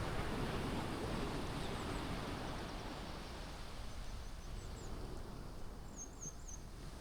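Sea waves washing onto the beach, the surf noise loudest at the start and slowly ebbing away. A small bird gives a few short, high chirps near the end.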